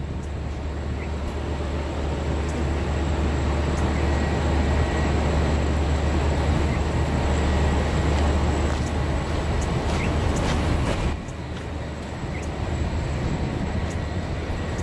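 Heavy-haulage truck's diesel engine giving a steady, deep rumble as it pulls an oversize load slowly along the road; the level drops suddenly about eleven seconds in.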